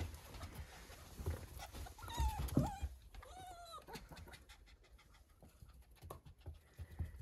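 A fox kit and a puppy greeting nose to nose: two short high whimpering cries, about two seconds in and again a second later, over soft scuffling of paws, then a run of light ticking like claws on the hard floor.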